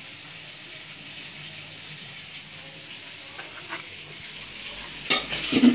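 Steady hiss from the stove, with cooking oil heating in a pan over the burner. Near the end come a short clatter of knocks and a brief voice sound.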